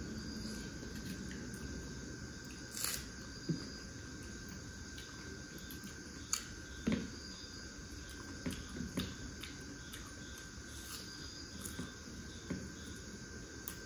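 Eating sounds from hand-eating a plate of rice and roasted chicken wings: scattered soft smacks and clicks of chewing and fingers in food, every second or two. Under them runs a faint steady hiss with a thin high steady tone.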